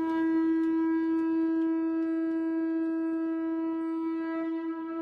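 One long held note on a horn-like wind instrument, steady in pitch, easing down slightly near the end.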